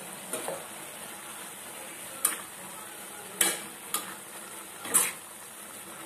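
A spoon stirring masala noodles in a metal kadai, scraping and knocking against the pan about five times. A steady sizzle comes from the simmering pan.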